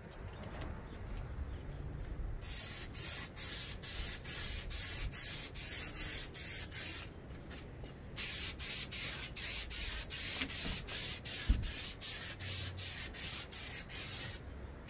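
Aerosol spray can of clear coat hissing in two long bursts, about four and six seconds long with a short pause between, as light coats of clear go onto painted car mirror covers. A single dull knock sounds during the second burst.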